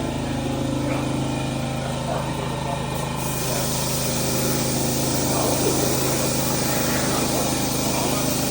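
A small motor running steadily with a constant drone, joined about three seconds in by a steady hiss.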